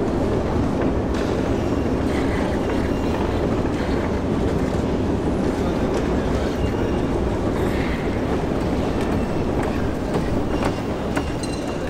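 Metro escalator running: a steady low mechanical rumble with faint scattered clicks.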